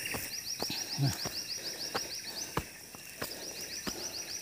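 An insect trilling in rapid, even pulses, about six or seven a second, in two runs with a short break in the middle, over the steady crunch of footsteps on a steep dirt trail.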